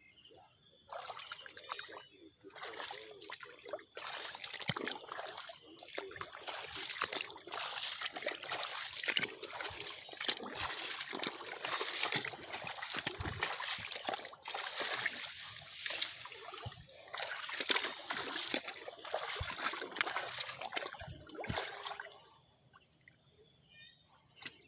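Water splashing and sloshing unevenly, starting about a second in and dying down near the end.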